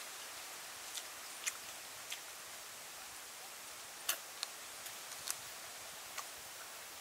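Mouth sounds of a person biting and chewing roasted duck off a drumstick: a scattered handful of short sharp clicks and smacks over a steady hiss.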